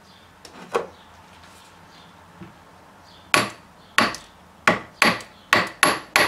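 A ball-peen hammer tapping a cast-iron valve body to seat it on its alignment pin: a light knock under a second in, then seven sharp metal taps in quick, uneven succession over the last three seconds.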